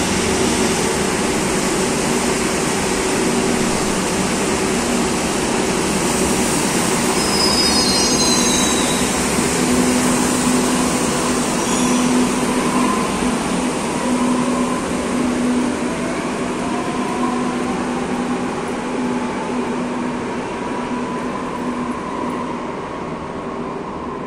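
Madrid Metro 2000B-series electric train pulling out of an underground station. Its traction motors hum steadily over the rumble of the cars, a brief high wheel squeal comes about 8 seconds in, and a rising motor whine builds as it gathers speed. The sound fades toward the end as the train leaves.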